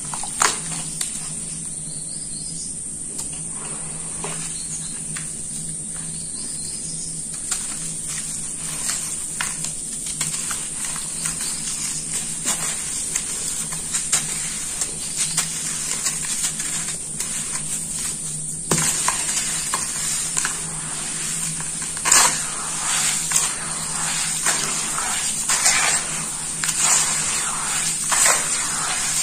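Hands crumbling a water-soaked sand-and-cement block in a metal basin, with small crackles and crumbling. About two-thirds of the way through the sound turns denser and louder as the crumbs are kneaded into wet mud and squelched.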